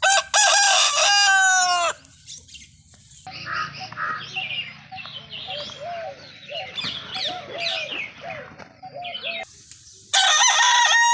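Rooster crowing, a long loud call of about two seconds. Then several seconds of quieter clucking and short chicken calls, and near the end another rooster begins a long crow.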